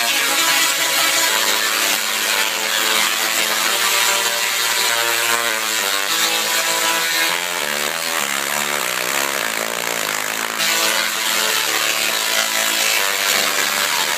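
10 kVA dual-resonant solid-state Tesla coil (DRSSTC) playing a tune from a MIDI controller: its arcs buzz harshly at musical pitches that step from note to note several times a second.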